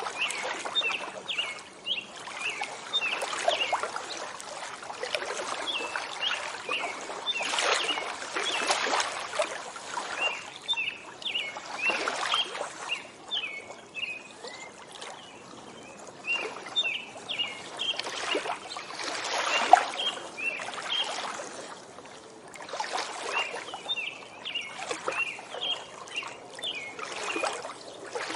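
Lake water lapping against the shore in small irregular splashes, with birds chirping in quick bursts of short high notes, on and off.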